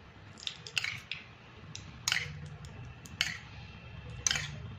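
A metal spoon clinking against a steel bowl and the cast-iron paniyaram pan as melted ghee is spooned into the pan's cups: short sharp clicks about a second apart, over a low steady hum.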